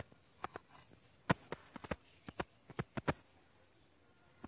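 A run of about a dozen irregular sharp knocks and clicks, bunched in the first three seconds, then a quieter last second.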